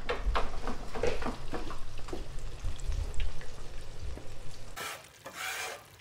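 Pieces of crappie being coated by hand in breading and put into an electric deep fryer, with rustling and light knocks. About five seconds in comes the sizzle of the fish frying in the oil, swelling and fading about once a second. This first batch is in oil that was not hot enough.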